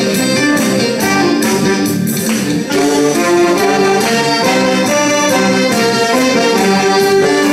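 A saxophone ensemble plays a lively trot tune together, in held and moving melody notes over a steady beat.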